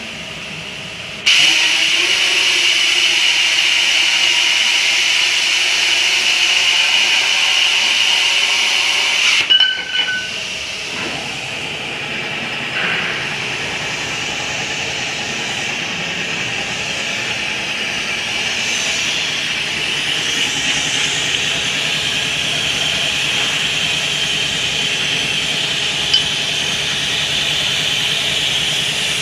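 CNC pipe cutting machine at work on a steel pipe: a loud, steady cutting hiss with a high whine starts suddenly about a second in and cuts off sharply about nine seconds in. After that the machine keeps running more quietly, with a few light knocks.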